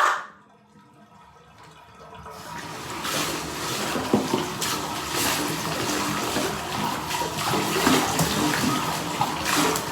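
Water running in a bathtub, as from a tap or shower rinsing off soap. It starts faintly about two seconds in and builds to a steady rush with small knocks and splashes. The tail of a loud sound cuts off at the very start.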